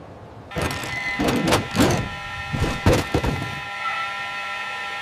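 Added sound effects: a run of knocks and clattering over a steady mechanical whirring hum that sets in about half a second in.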